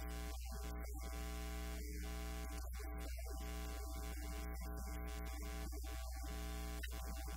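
Steady electrical mains hum and buzz from a faulty audio feed: a low drone with many evenly spaced overtones, cut by short, irregular dropouts.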